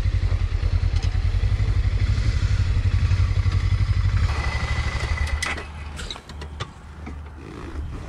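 Motorcycle engine idling with a steady rapid low throb, which drops to a quieter level about five seconds in, followed by a few light clicks.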